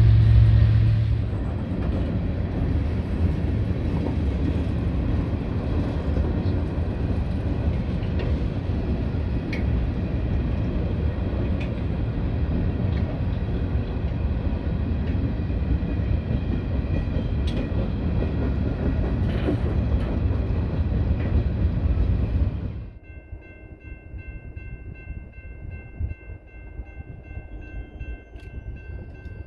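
Mixed freight cars of a manifest train rolling past: a steady heavy rumble and clatter of steel wheels on rail, with scattered sharp clicks. About 23 seconds in the sound cuts off, leaving a much quieter scene with a faint, steady chord of high tones.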